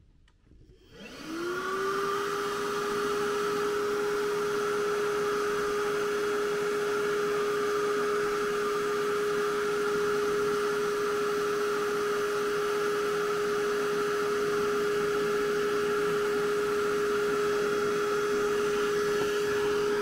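Milwaukee M12 Fuel brushless wet/dry vacuum switched on about a second in: its motor spins up with a rising whine, then runs steadily with a high hum and a rush of air from its exhaust port.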